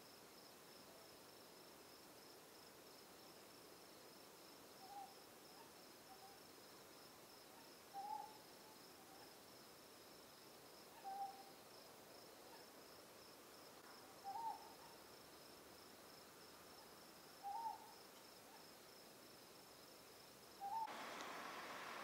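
Ryukyu scops owl calling: short hoots repeated about every three seconds over a steady, pulsing high-pitched insect trill. Near the end the background hiss gets louder.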